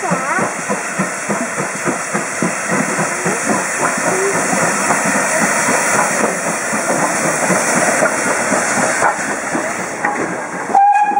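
GWR 4200 class 2-8-0 tank engine 4247 passing close by under steam: quick exhaust beats over a steady hiss of steam. A short whistle sounds near the end.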